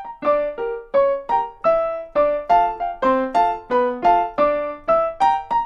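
Piano playing a cumbia tumbao accompaniment: short, detached chords struck in a steady, syncopated rhythm, about three a second. It moves from a D chord to an A chord.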